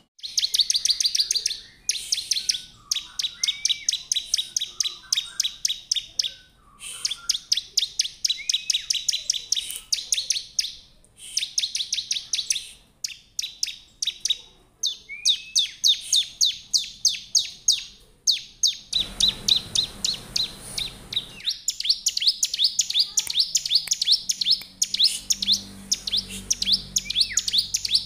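Bar-winged prinia (ciblek) singing: rapid runs of sharp, high chirps in bursts of one to two seconds with short breaks between them. About two-thirds of the way through, a rushing hiss lasts a couple of seconds under the song.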